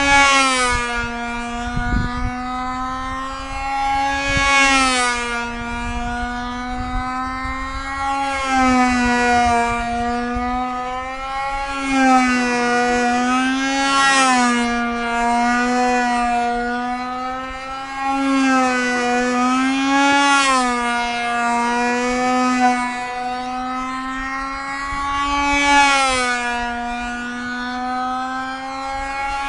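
O.S. LA .25 two-stroke glow engine of a control-line stunt model plane running at full throttle in flight, a steady high whine whose pitch rises and falls and whose loudness swells every few seconds as the plane circles the pilot.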